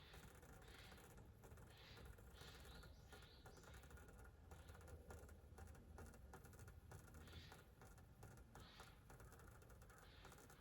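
Near silence: faint outdoor ambience with soft, short high-pitched chirps or ticks repeating irregularly about every half second to a second, over a low rumble.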